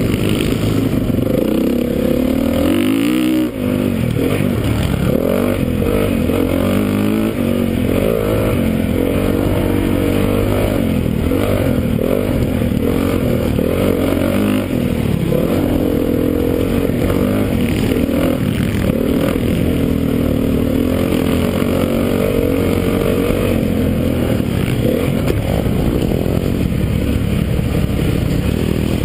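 Honda CRF450 single-cylinder four-stroke dirt bike engine revving up and down continuously as it is ridden hard around a motocross track. The throttle is chopped briefly about three and a half seconds in, and the engine note climbs and falls again through corners and straights.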